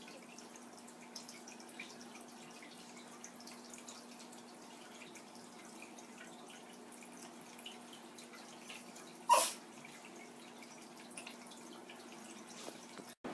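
Faint steady hum and light water trickling and dripping from an aquarium filter, with scattered small ticks. One short, sharp sound stands out about nine seconds in.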